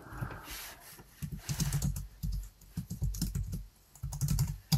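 Typing on a computer keyboard: quick runs of keystrokes with brief pauses between them.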